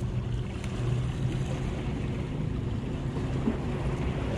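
Steady ocean surf with wind noise on the microphone, and a low steady hum underneath.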